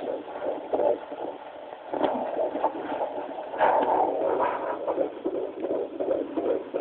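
A handheld fetal Doppler's speaker pulses with an unborn baby's heartbeat, settling near the end into a quick, regular beat of about three a second. About two seconds in there is a single sharp knock, likely the probe being shifted.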